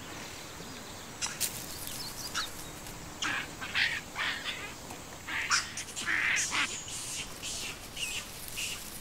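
Barbary macaques calling: a run of short, harsh squeals and chatters that come thickest and loudest in the middle.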